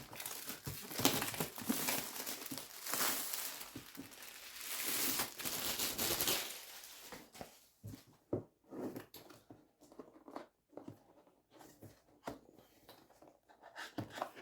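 Packaging crinkling and rustling as a keyboard is unwrapped from its box, for about the first seven seconds, then scattered light knocks and clicks of handling.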